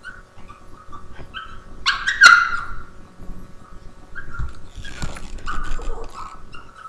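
A Boston Terrier whining and whimpering in short high-pitched calls, pestering another dog for its treat, with one louder, sharper yelp-bark about two seconds in.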